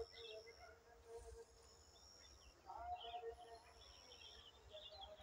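Faint outdoor ambience with scattered, quick chirps of small birds.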